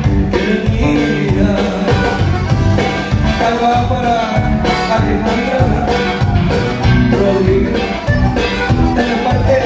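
Live conjunto band playing: button accordion over bass guitar and drums with a steady beat, and a man singing into a microphone.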